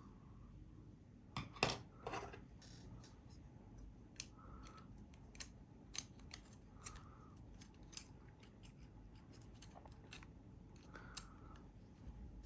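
Light, irregular clicks and taps of hard plastic parts being handled, with two louder clacks about one and a half to two seconds in.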